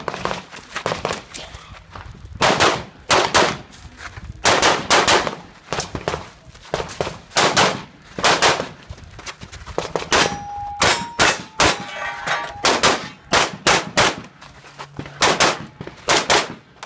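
Pistol shots fired rapidly, mostly in quick pairs, as a shooter works through a practical shooting stage. Around the middle, several shots are followed by short metallic rings of bullets striking steel targets.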